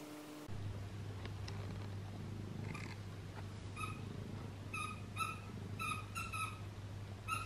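A cat purring steadily, with a quick run of about ten short chirping calls in the second half.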